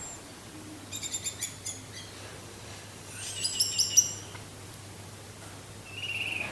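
Orange-headed thrush (anis merah) singing: a burst of sharp, high chattering notes about a second in, another around three to four seconds in, and a short warble near the end.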